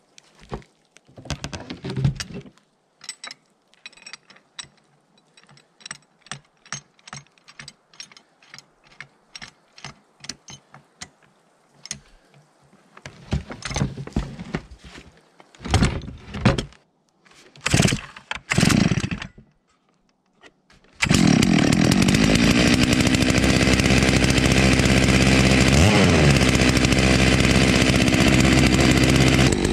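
Light clicks and knocks, then several hard pulls on the starter cord of a Holzfforma G660 two-stroke chainsaw powerhead mounted on a Lewis winch. About two-thirds of the way in, the engine catches and runs loud and steady.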